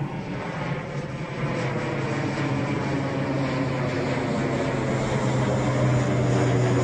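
An airplane's engines running with a steady low drone that grows gradually louder as the aircraft comes closer.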